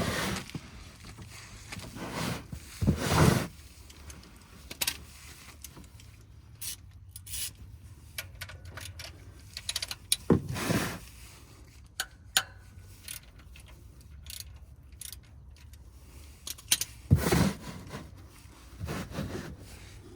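Irregular scrapes, rubs and clinks of tools and a plastic oil catch pan being handled and positioned under a car, with a few louder scuffs and knocks scattered through.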